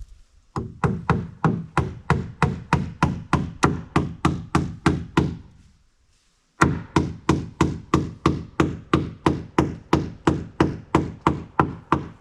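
Rapid, evenly spaced knocks on wood, about four a second, in two long runs separated by a pause of about a second and a half near the middle.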